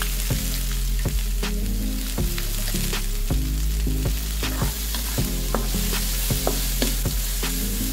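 Chopped onions sizzling in hot coconut oil in a metal wok, with a spatula stirring them and knocking and scraping on the pan in short irregular clicks.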